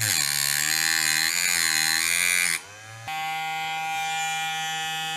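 Small rotary tool with a cut-off disc grinding into the metal centre conductor of a Märklin M-track section, a loud hissing grind over the motor's whine for about two and a half seconds, making the cut that isolates the centre conductor. After a short dip the tool keeps running without load, a steady whine.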